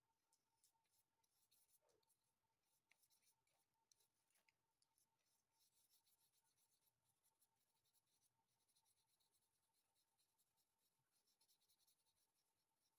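Very faint, scratchy strokes of a flat brush laying black acrylic paint onto a canvas board, with a faint steady tone underneath.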